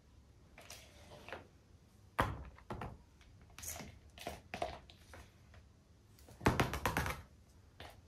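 Palette knife scooping structure paste from a plastic tub and spreading it on a canvas: a string of short scrapes, clicks and knocks, the loudest cluster about six and a half seconds in.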